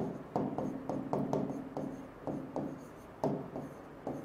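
Stylus writing by hand on an interactive display screen: a run of irregular taps and short scratchy strokes, several a second, as letters are formed.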